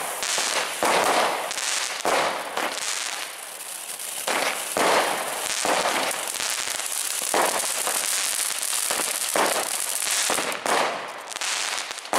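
Broekhoff Color Crackling ground fountain burning: a steady hiss of spraying sparks with dense bursts of crackling pops every second or so.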